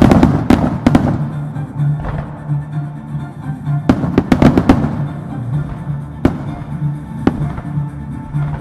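Firework shells bursting over music: a quick run of bangs at the start, another run about four seconds in, then two single bangs near the end.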